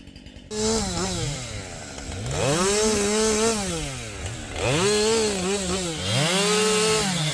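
Two-stroke chainsaw going from idle to full throttle about half a second in. It is then revved up and eased back about four times while cutting up maple and birch logs, holding at high speed for a second or two each time.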